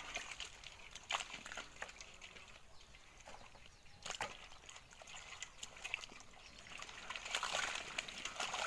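Hands rummaging through a heap of small wet fish in a metal basin: light sloshing and wet slapping, with scattered sharp clicks that come thicker in the last couple of seconds.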